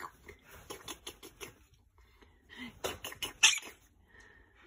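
Cloth bedding in a quaker parrot's shelf nest rustling and scratching as it is handled, in a run of quick soft clicks, with a louder flurry of scratches near the middle.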